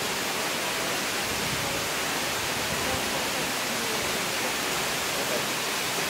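Tall waterfall plunging down a rock face, a steady, even rush of falling water.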